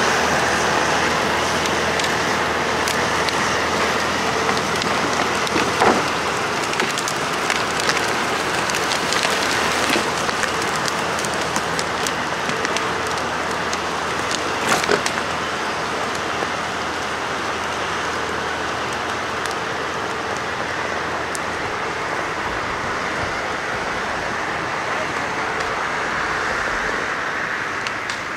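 TAF articulated forestry skidder's MAN 160 hp diesel engine running under load as it drags logs, growing gradually fainter as it pulls away. Two sharp cracks stand out, about six and fifteen seconds in.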